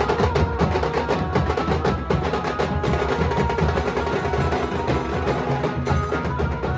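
Nashik-style dhol drumming: several dhols played together in a fast, dense, continuous rhythm, with sharp cracking strokes on top and some sustained pitched tones under the beat.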